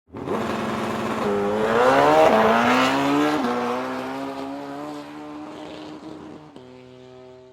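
A car engine accelerating hard: its note climbs, drops back twice as if shifting gears, then holds steady while fading away into the distance.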